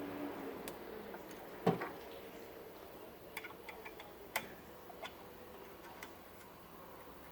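Scattered light clicks and taps of parts being handled on a key-cutting machine, with one louder knock about a second and a half in.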